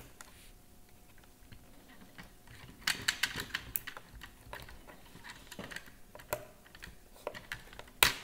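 Small screwdriver clicking and scraping against the plastic axle clip of a robot mop's wheel as it is pried off. The clicks come in an irregular cluster a few seconds in, with one sharp, louder click near the end.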